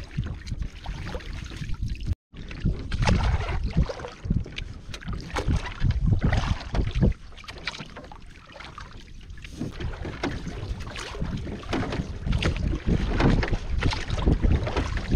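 Gusty wind buffeting the microphone, rough and heavy in the low end, rising and falling unevenly; the sound cuts out for an instant about two seconds in.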